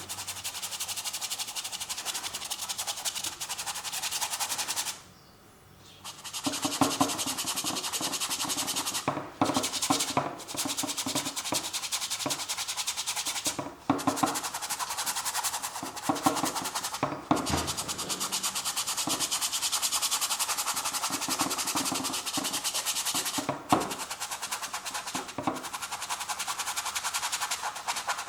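Paintbrush scrubbing acrylic paint onto a canvas in rapid scratchy strokes, with a pause of about a second around five seconds in and a few brief breaks later.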